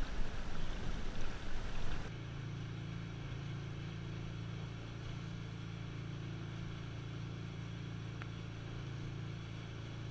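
Motorboat engine running under way at speed: a steady, even drone. It starts abruptly about two seconds in, after a short stretch of louder, uneven noise.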